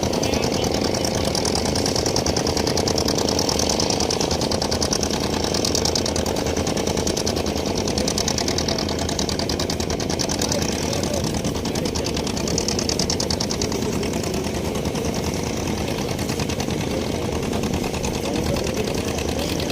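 Boat engine running steadily with a fast, even beat.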